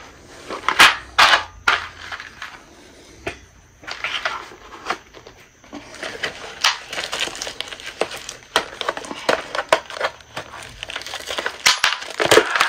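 Handling noise from assembling a steel bed frame: rustling and crinkling with many scattered light clicks and knocks of metal parts, busier in the second half.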